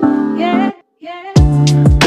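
Background music: a slow sung song cuts off under a second in, and after a brief gap a new track with a heavy beat and deep bass kicks that drop in pitch starts.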